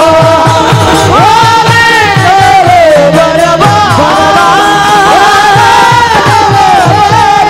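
Marathi Varkari kirtan bhajan music: a male voice and a keyboard carry a gliding melody over hand cymbals (taal) and a steady low beat of about three to four strokes a second.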